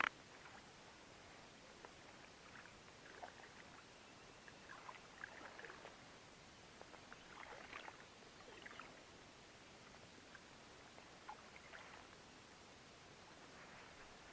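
Faint splashing and dripping of water at an oar and the side of a small boat being rowed, in scattered soft bursts, after one sharp click at the start.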